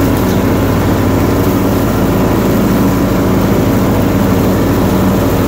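An engine running steadily at an even speed, with a low, constant hum.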